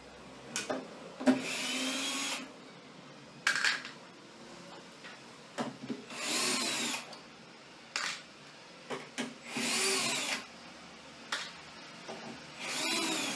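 Cordless drill-driver backing out the screws of a washer-dryer's drying unit: five short runs of the motor, each whining up and down in pitch, with small clicks of the bit and screws between them.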